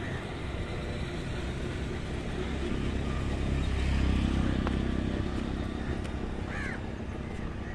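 A motor vehicle engine passing by, growing louder to a peak about four seconds in and then fading, over a steady outdoor background rumble.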